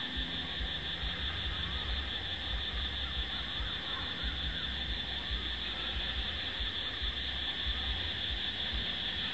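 Steady, high-pitched insect chorus, a continuous shrill drone, with a low rumble underneath.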